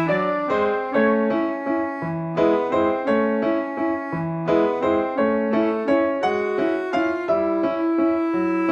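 Piano music: a melody of separately struck notes at a moderate pace over lower notes, each note starting sharply and fading.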